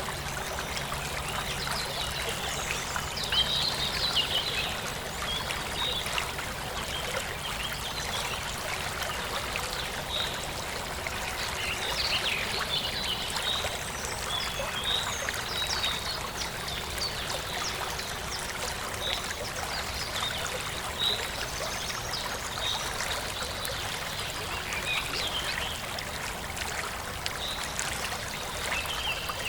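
Forest stream trickling and babbling over rocks, with small birds chirping and twittering at frequent intervals.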